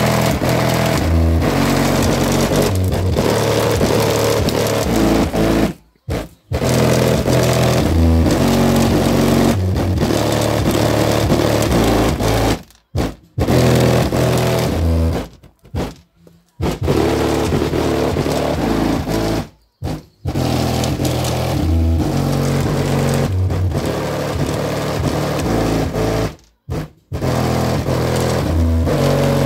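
Bass-heavy music played loud through two Pyle PLPW10D 10-inch subwoofers sitting unmounted in their open cardboard boxes, driven by a Pyle PA-80D amplifier. Deep bass notes step from one pitch to the next, with several short silent breaks.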